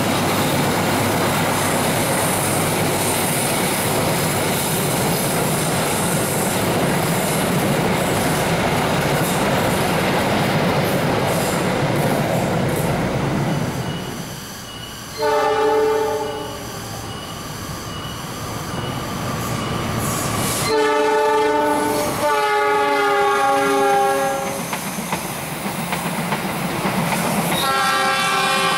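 Train running past on the rails with a steady rolling noise, then its horn sounding: a short blast about halfway through, two longer blasts a few seconds later, and another starting near the end.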